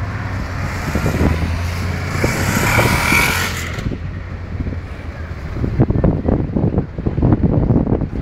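Road vehicles passing close by: a steady engine hum with rising tyre and engine hiss that ends abruptly about four seconds in. After that, wind buffets the microphone.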